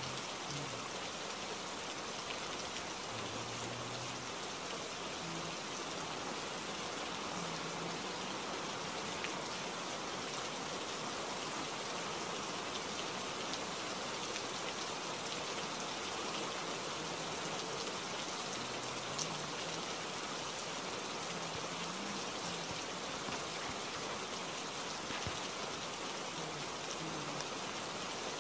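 Steady rain falling, an even hiss without breaks or changes.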